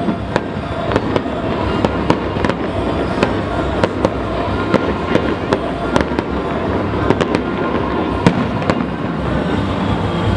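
Aerial fireworks shells bursting in a rapid string of bangs and crackles, several a second, with music underneath.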